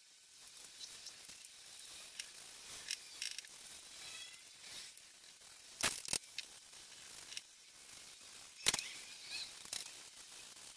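Small paint roller rolling chalk-style furniture paint onto wooden sideboard panels: a faint, sticky hiss. A few sharp clicks, two close together about halfway through and one a little later, as the roller is worked in the paint tray.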